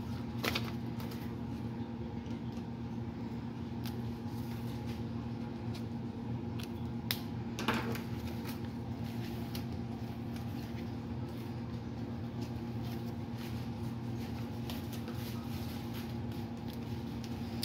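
Paper dollar bills being handled and slid into a plastic binder pocket, giving a few brief rustles and clicks over a steady low room hum.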